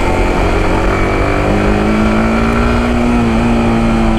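Yamaha R15M's single-cylinder engine pulling under light acceleration, its note rising gently as the bike speeds up, with wind rumble on the microphone.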